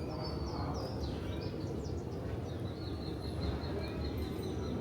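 A small bird chirping, then a quick trill of repeated high notes, over a steady low background rush.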